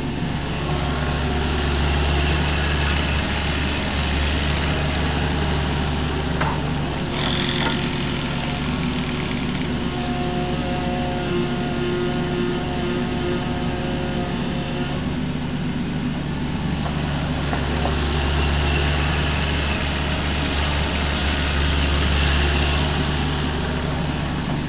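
Kubota KX61-3 mini excavator's three-cylinder diesel engine running steadily while it digs a trench, working the boom and bucket. A brief sharp sound about seven seconds in.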